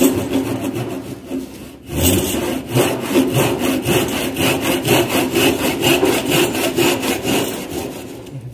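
Tenon saw cutting through a wooden block with steady back-and-forth strokes, pausing briefly about two seconds in and easing off near the end.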